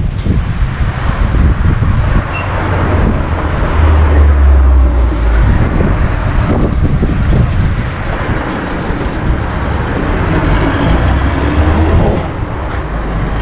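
Strong wind buffeting the GoPro Hero 8 Black's built-in microphone: a loud, gusting low rumble with a rushing hiss over it.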